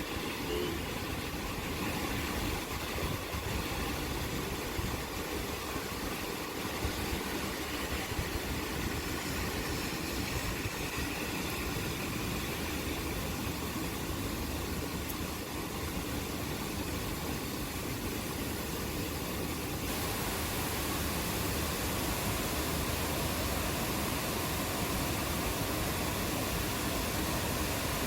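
Steady rain hiss with a low rumble underneath it. About twenty seconds in, the hiss turns slightly brighter and louder.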